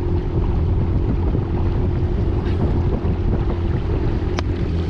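Yamaha WaveRunner personal watercraft engine idling, a steady low hum, with wind noise on the microphone. A single sharp click about four seconds in.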